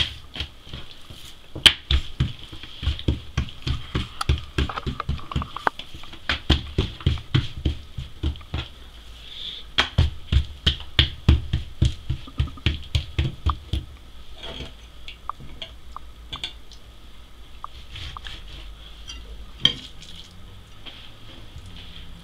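Hands patting and pressing oiled msemen dough thin on a wooden tabletop: a quick run of soft slaps and thumps that thins out after about fourteen seconds, over a faint steady high whine.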